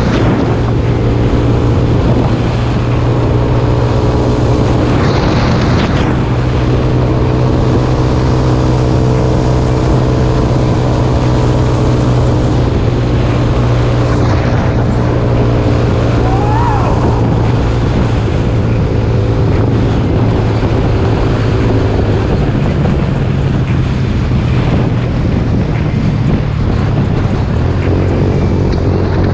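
A Jasscol 200cc trike's engine running steadily while riding, with wind noise on the microphone. The engine note changes about two-thirds of the way through.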